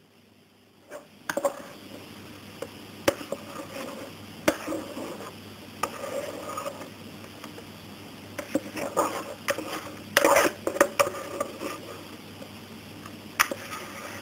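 A spatula scraping thick, airy egg-cake batter out of a stainless steel mixer bowl and into a square metal cake pan, with irregular clinks and knocks of utensil and bowl against metal. It begins about a second in, and a cluster of louder knocks comes about ten seconds in.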